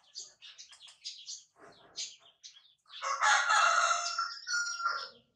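Baby monkey squeaking in a string of short, high chirps, then letting out a loud, drawn-out distress scream about three seconds in, which breaks off and resumes briefly before stopping, as its bottom is wiped.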